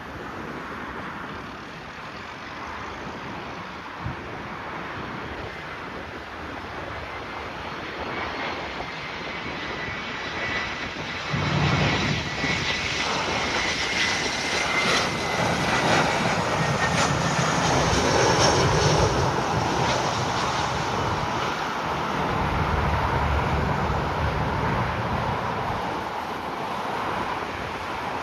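Jet airliner's engines passing close by. A high whine slides slowly down in pitch as it goes past, and a deep rumble swells in about halfway through and eases off near the end.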